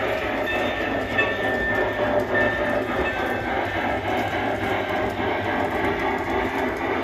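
G-scale LGB model locomotives, a steam engine and a diesel double-heading, running with a freight train: a steady hum of motors and gears with wheels clicking over the track. A thin high squeal comes and goes in the first three seconds.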